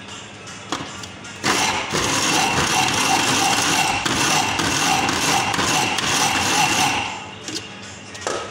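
Small electric countertop blender/grinder switched on to grind, running steadily for about five and a half seconds before it stops and winds down. A click comes just before it starts, and a knock near the end as the jar is handled.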